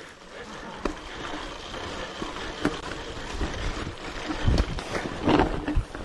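Hardtail mountain bike being ridden down a dirt trail: steady rolling noise with clicks and rattles from the bike, and heavier thumps over bumps about four and a half to five seconds in.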